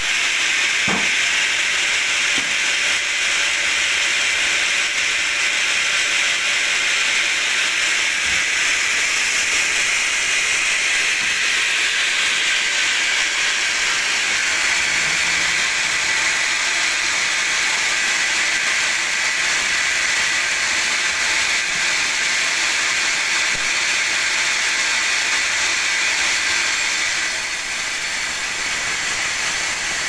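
Band sawmill running steadily with an even, high hiss-like whir, with a few faint knocks as a squared teak beam is shifted on the carriage.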